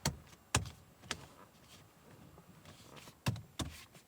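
Hands tapping and handling a Toyota RAV4 hybrid's steering wheel inside the cabin: three sharp knocks about half a second apart at the start, a soft rubbing in the middle, then three more knocks about a third of a second apart near the end.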